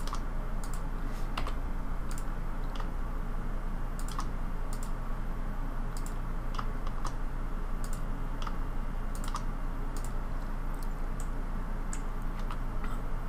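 Computer keyboard and mouse being worked while modelling in SketchUp: scattered, irregular keystroke clicks, a few a second, over a steady low hum.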